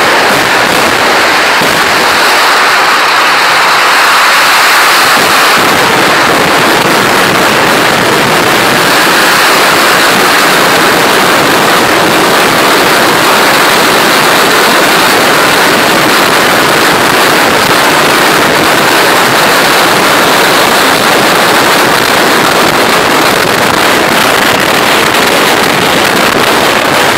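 Kerala vedikkettu fireworks at full pitch: a dense barrage of firecracker explosions, so rapid and loud that they run together into one continuous din with no pauses.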